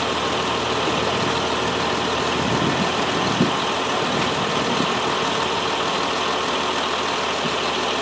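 Vehicle engine idling steadily, with one short knock about three and a half seconds in.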